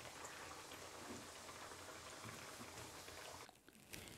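Breaded chicken schnitzel deep-frying in hot oil: a faint, steady sizzle and crackle of bubbling oil, which stops about three and a half seconds in.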